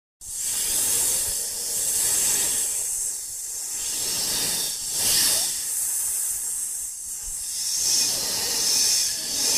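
Designed giant-snake (Titanoboa) hissing: a long, airy hiss that starts abruptly and swells and eases several times, loudest about halfway through and near the end.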